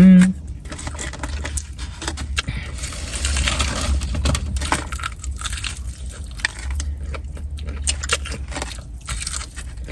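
Close-up eating noises: chewing fried chicken and fries, with irregular small clicks, scrapes and crackles from handling the food and its packaging, over a steady low hum.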